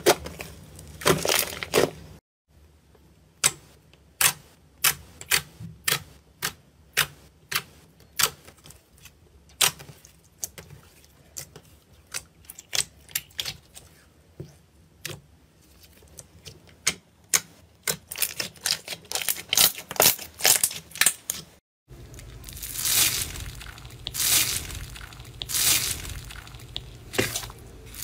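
Slime squeezed and pressed by hand, giving a string of sharp clicking pops of trapped air, roughly one or two a second. About three quarters of the way in it changes to a denser crackling crunch as a hand presses into slime packed with small foam beads.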